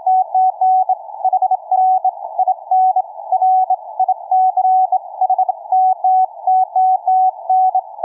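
Morse code (CW) signal on the 40-metre amateur band, received on an Elecraft K3S and heard through a W3NQN passive narrowband audio bandpass filter: one steady beep keyed on and off in dots and dashes. The band noise behind it is cut down to a narrow hiss around the tone's pitch.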